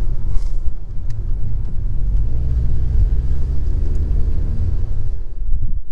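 Car engine and road rumble heard from inside a moving car. The engine note rises slightly in the middle as the car gathers speed, then eases near the end.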